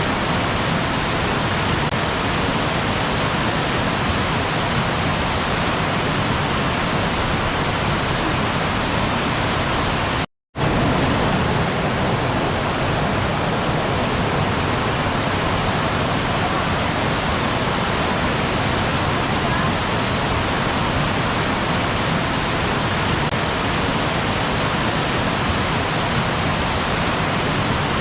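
Waterfall rushing as a steady, even roar of falling water, cut by a brief gap of silence about ten seconds in.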